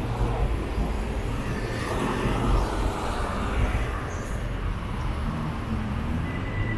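Road traffic at a city junction: a steady rumble of passing vehicles, swelling about two seconds in as a vehicle passes close by.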